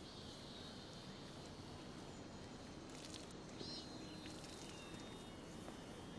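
Faint outdoor ambience: a steady hiss with a thin high buzz and a few short high chirps, typical of insects, and a couple of soft clicks about three seconds in.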